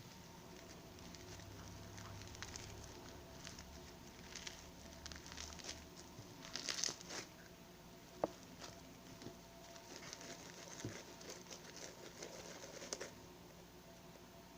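Slime being worked by hand: irregular soft squishy crackles and pops, busiest around the middle, with one sharp click a little after.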